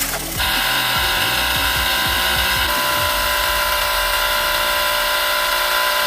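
Electric power tool running steadily with a high whine, starting about half a second in.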